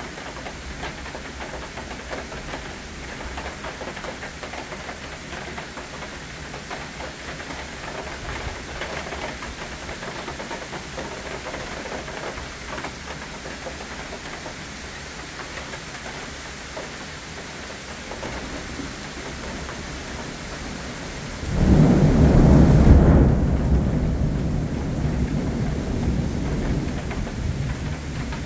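Steady rain falling on trees and foliage. About three-quarters of the way through, a loud peal of thunder breaks in suddenly, heavy and low, and slowly fades back under the rain.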